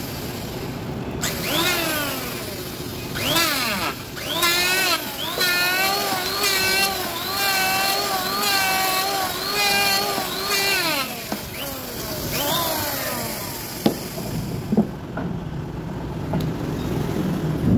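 Electric hand planer with freshly sharpened blades, its motor whine rising as it spins up and falling as it runs down, several times over. In the middle it holds a steady run for about five seconds while shaving across a wooden block. Two sharp knocks come near the end.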